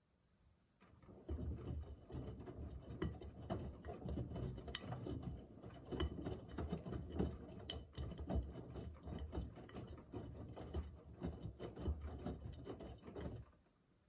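Miele Navitronic W3985 WPS washing machine drum turning during an Express 40° wash. Laundry and water tumble with a low rumble and irregular knocks and clicks. The drum starts about a second in and stops near the end, the stop-start of the machine's wash rhythm.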